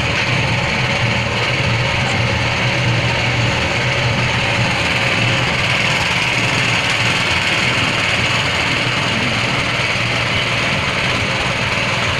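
Dry feed mixing machine running steadily: a constant low hum under a continuous rasping rush.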